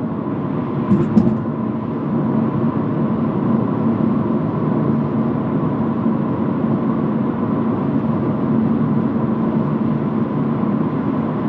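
Steady road and tyre noise with a low drone, heard inside a BMW M2 Competition's cabin at a steady 70 mph with the radio off, the doors lined with Soundskins damping mats. A couple of faint clicks come about a second in.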